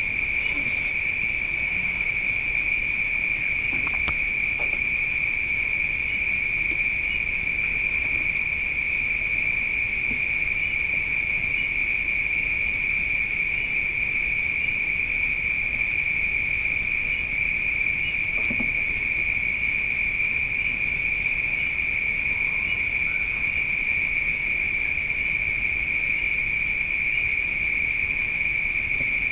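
Night insects, crickets, trilling in a continuous chorus on two steady high pitches.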